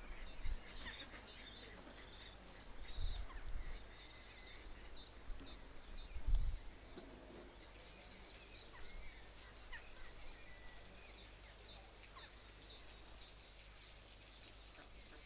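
Outdoor birdsong: many small birds chirping in short, scattered calls. Two low, dull bumps come about 3 and 6 seconds in.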